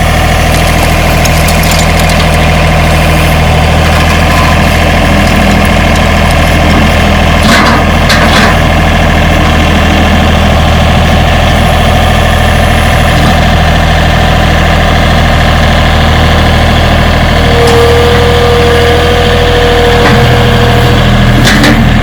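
John Deere 3025E compact tractor's three-cylinder diesel engine running steadily at close range, with a few short knocks about eight seconds in. A steady whine joins for a few seconds near the end.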